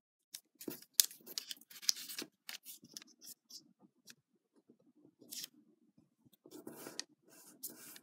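Square of origami paper being folded and creased by fingers: a run of crisp paper rustles and crackles, busiest in the first couple of seconds and again near the end.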